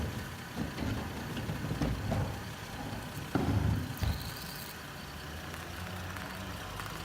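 Car engine running at low speed, a steady low hum, with a few louder rumbling swells; the biggest begins with a sudden crack a little over three seconds in and lasts under a second.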